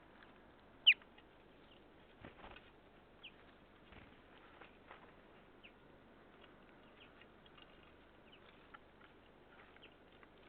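Small birds feeding: one loud downslurred call about a second in, then scattered faint chirps and light clicks.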